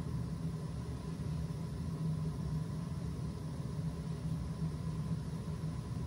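Gas-fired steam boiler's burner running while making steam: a steady low rumble with a faint, thin steady tone above it.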